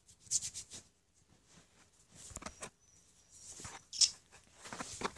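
A dog whining faintly to be let outside, with short scuffing and rubbing noises. The loudest noise is a brief hiss about four seconds in.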